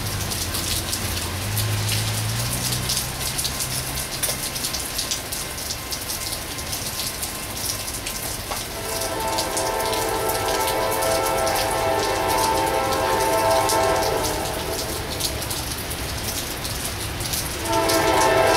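Steady rain falling, full of small drip ticks. About nine seconds in, the air horn of an approaching CSX freight locomotive sounds a long blast for the grade crossing and then fades; a louder blast starts near the end.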